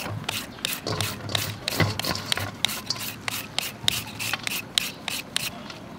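Crisp shredded raw carrot and other vegetables being handled and scraped on a wooden board: a quick, irregular run of dry, scratchy rustles, about three or four strokes a second.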